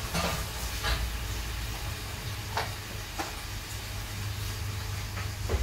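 A steady low hum with a hiss over it, with a few light clicks and knocks from things being handled.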